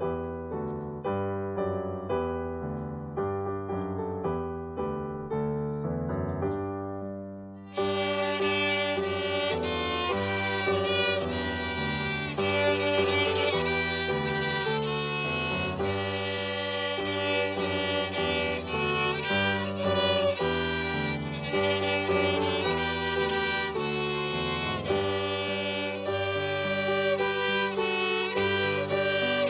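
Orchestra music with violins and piano. Piano-like notes play alone at first, then the strings come in together about eight seconds in, and the music grows louder and fuller.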